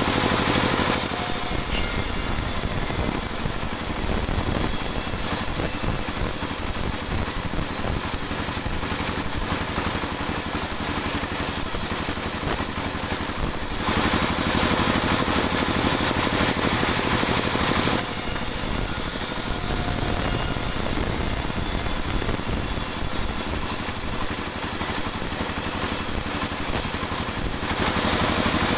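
Band sawmill running steadily while it saws dry teak into 2 cm boards. Its sound changes when the blade goes into the wood about a second in. It changes back for a few seconds around the middle, and the second cut ends near the end.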